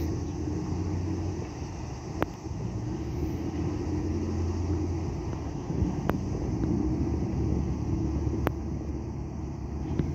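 Steady low rumble of boat engines running on the water, with three sharp clicks spread through it.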